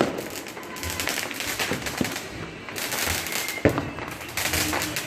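Roman candle fireworks going off: hissing rushes as shots are fired, with crackling pops throughout and one sharp bang about two-thirds of the way in.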